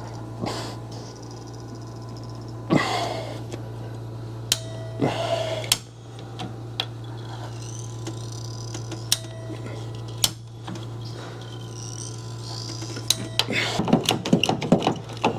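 Hand tools and fittings clinking, knocking and scraping against drain pipe while working in a cramped wall cavity, in scattered taps with a busier clatter near the end, over a steady low hum.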